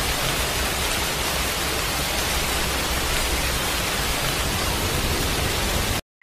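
Loud, steady hiss of noise with no tone or rhythm, like static or rushing water. It cuts off suddenly near the end.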